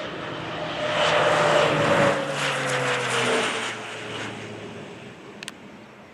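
Air Tractor AT-602 crop-spraying plane with a Pratt & Whitney PT6A-60AG turboprop engine passing low and fast. Its engine and propeller noise swells to a peak about two seconds in, drops in pitch as it goes by, and fades away. A brief click near the end.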